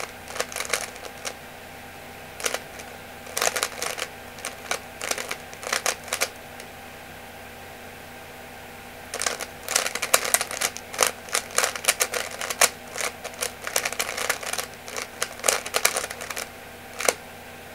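3x3 Rubik's cube being turned fast by hand: quick runs of clicking and clacking as the layers snap round, in bursts, with a pause of about three seconds in the middle.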